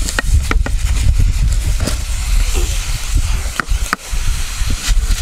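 Wooden spoon scraping and knocking against an aluminium pot as thick chikanda paste is pressed and smoothed down, giving scattered sharp clicks over a steady low rumble.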